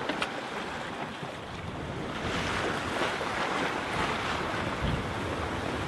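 Open-ocean waves washing and breaking, with wind on the microphone; the rush of water grows louder about two seconds in.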